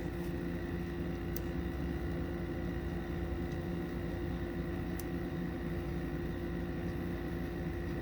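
Steady mechanical room hum, like a fan or air conditioner running, with a few faint light clicks.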